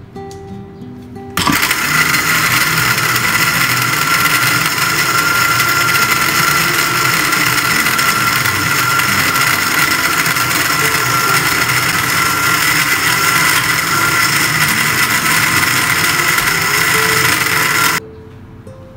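Countertop blender running, crushing ice and coffee into a smooth ice-blended drink: a loud, steady motor whine with grinding noise that starts suddenly about a second and a half in and cuts off near the end.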